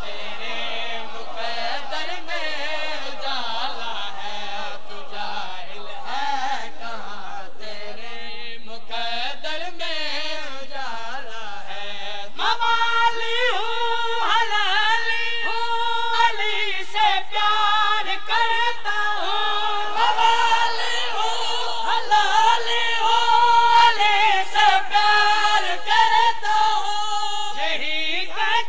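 A man's voice chanting a mournful Shia lament through a microphone, with ornamented, wavering melodic lines. About twelve seconds in it grows louder, into long held notes with a tremble.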